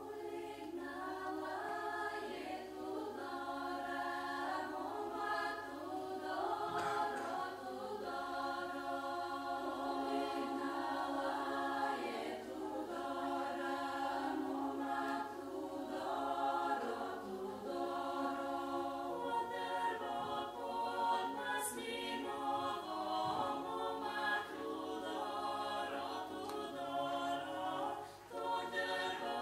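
Recorded unaccompanied choir singing sustained chords in close harmony, several voices moving together.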